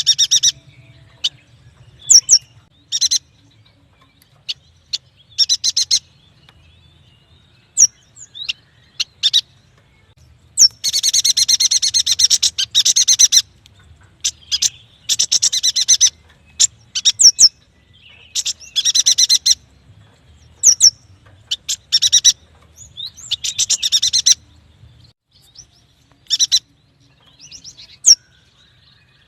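Yuhina singing: bursts of fast rattling trills separated by short sharp chirps, with one longer trill of about three seconds near the middle.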